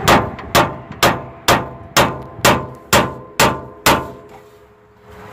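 Nine hammer blows, about two a second, on the steel steering knuckle of a Toyota Tacoma, each with a short metallic clang. The knuckle is being struck beside the lower ball joint to shock the ball joint stud loose from it.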